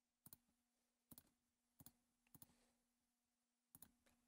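Faint computer mouse clicks: about five short clicks at uneven intervals over four seconds, each a quick double tick of press and release, as points of a line are placed one at a time.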